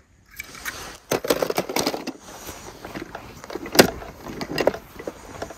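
Hand-handling noise: rustling and small clicks, with one sharp clack near the middle as a die-cast toy car lands in a plastic basin among other toy cars.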